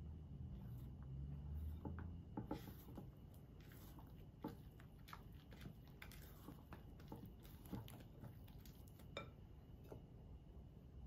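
A silicone spatula folds flour into wet batter in a glass bowl: faint, irregular soft clicks and scrapes against the glass and through the sticky mix.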